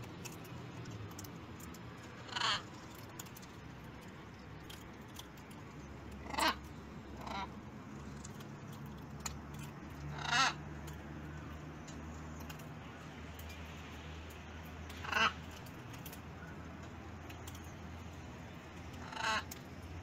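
Blue-and-gold macaws giving harsh squawks: six short calls spaced a few seconds apart, over a faint low steady hum.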